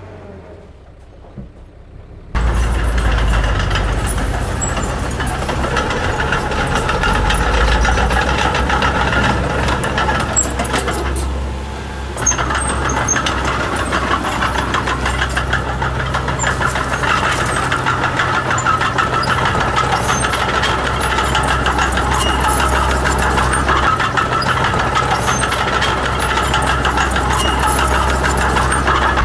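Heavy construction machine's diesel engine running loud and steady. It comes in abruptly about two seconds in after a quieter stretch, and dips briefly near the middle.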